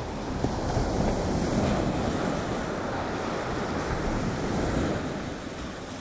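Steady rush of sea surf breaking and washing over shallow sandbars, with wind, easing slightly near the end.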